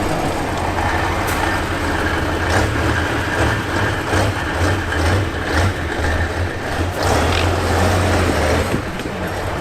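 A heavy truck engine running steadily, with scattered knocks and clatters over it.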